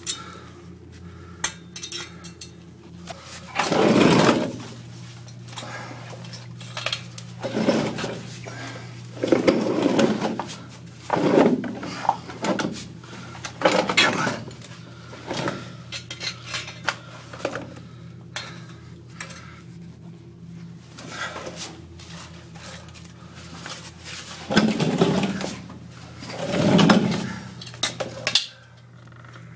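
Irregular knocks, scrapes and metallic clinks from crawling through a cramped, wet 2-foot-square tunnel, with several louder scraping bursts, over a steady low hum.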